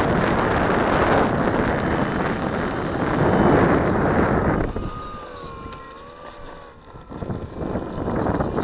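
Strong wind buffeting on an action camera's microphone aboard a flying RC plane. About halfway through the rush drops away for a few seconds, leaving a faint wavering whine from the plane's electric motor and propeller, then the wind noise comes back near the end.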